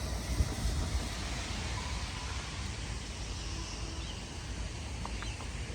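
Outdoor street background noise: a steady low rumble and hiss, with one brief bump about half a second in.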